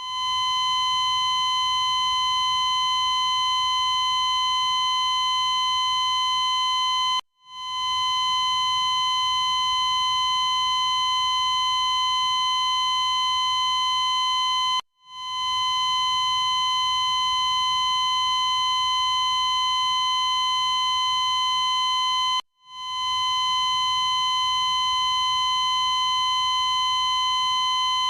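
Glitchy cardiac monitor sound: one steady high tone, cut off for an instant three times, about every seven and a half seconds, swelling back in each time.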